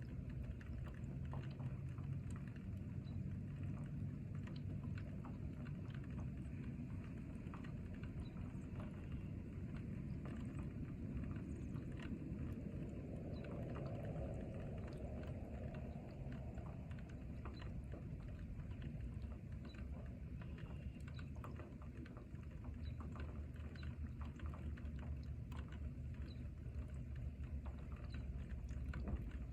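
Steady rain, with many small drops pattering close by over a low, even rumble.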